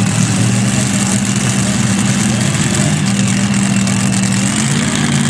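Multi-engine modified pulling tractor's engines idling together, a loud steady running note with no revving.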